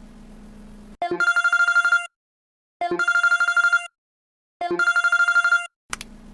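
Telephone ringing in three bursts of about a second each, every burst a rapid trill on one steady tone. A faint low hum comes before the first ring and after the last.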